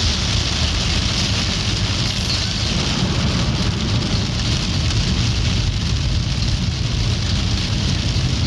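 Steady, loud rain, an even hiss with a low rumble underneath.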